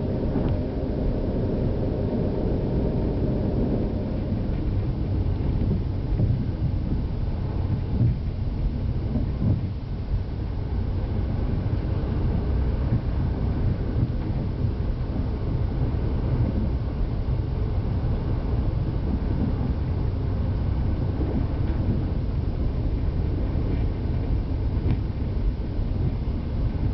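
KTR001 series diesel railcar running along the track, heard from the front of the train: a steady low rumble of wheels and running gear, with the diesel engine's drone fading out about four seconds in as the train carries on coasting, and a few faint knocks from the track.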